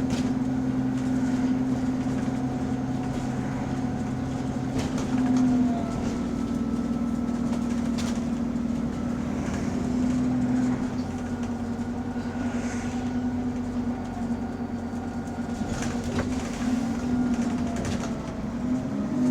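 Bus engine and drivetrain running, heard from inside the bus: a steady drone whose pitch falls slightly twice, with a few sharp rattles. The bus has an exhaust leak that can barely be heard from inside.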